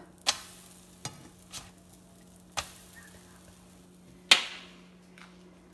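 Plastic spatula flipping pancakes in a ceramic nonstick frying pan: a handful of separate clicks and knocks against the pan, the loudest about four seconds in, over the faint sizzle of the pancakes frying.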